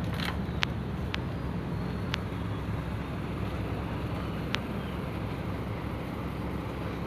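Steady low hum of an idling engine, with a few sharp clicks scattered through it.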